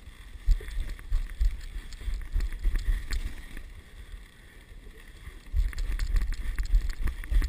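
Dog sled moving along a snow trail: the runners slide over the snow with scattered small knocks, while wind rumbles on the microphone in gusts, strongest about half a second in and again from about five and a half seconds.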